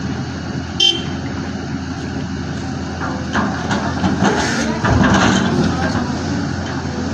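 Excavator's diesel engine running steadily under load, with a brief sharp sound about a second in and louder working noise in the middle.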